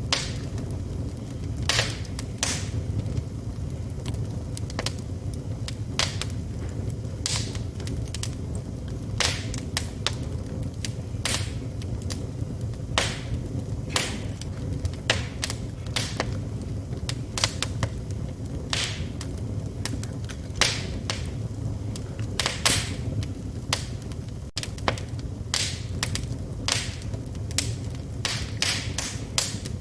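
Wood fire burning in a fireplace: a steady low rumble of flame under frequent, irregular sharp crackles and pops from the burning logs.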